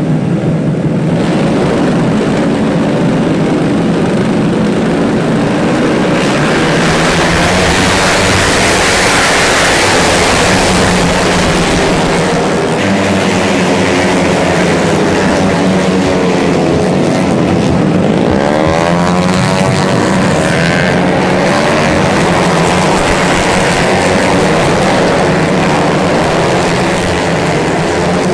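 Racing motorcycle engines running hard on the circuit, a steady mass of engine noise. About two-thirds of the way through, the pitch sweeps as a bike goes by.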